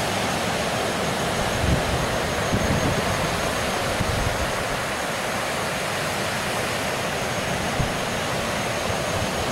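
Strong sea wind buffeting the microphone over the rush of surf breaking on a sandy beach: a steady rushing noise with irregular low gusty thumps.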